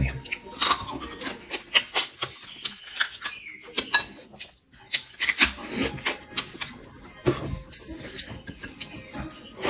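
Close-up crab eating: irregular sharp cracks and crackles of crab shell being pulled apart and bitten, mixed with sucking and chewing at the meat.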